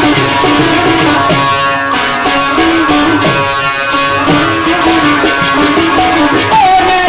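Instrumental Pothwari folk music: keyed Indian banjos (benjo) plucking a fast melody, with harmonium and a steady drum rhythm underneath.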